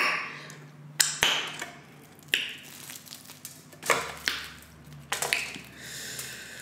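Crispy deep-fried chicken wing being bitten and chewed close to the microphone: a run of sharp crunches, about one a second.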